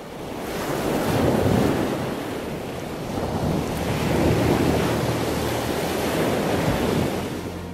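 Sea surf: waves breaking and washing in, swelling twice, about a second in and again at about four seconds, then easing off near the end.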